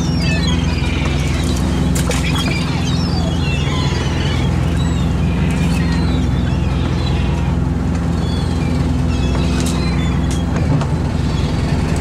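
Steady low drone of a small inshore fishing boat's engine, with gulls calling repeatedly in short wavering cries over it and a few sharp knocks.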